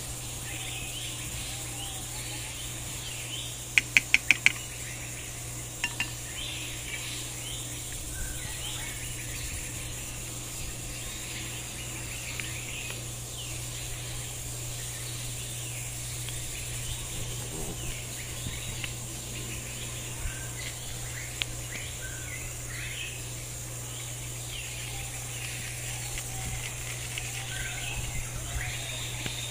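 Metal spoon clinking against a ceramic bowl: five quick ringing strikes about four seconds in and two more about two seconds later, with a few faint ticks afterwards. Birds chirp and insects buzz steadily throughout.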